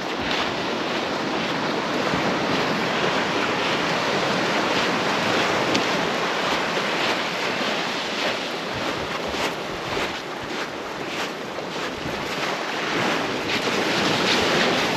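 Sea surf washing onto a sandy beach, a steady rush of waves, with wind buffeting the microphone.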